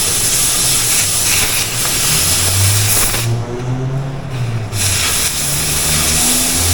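Oxy-fuel cutting torch hissing as it cuts through a steel car rim. The hiss cuts out for about a second and a half a little past the middle, then comes back.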